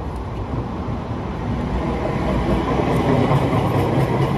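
Pram wheels rolling and rattling over paving stones in a dense, steady rumble that grows a little louder toward the end.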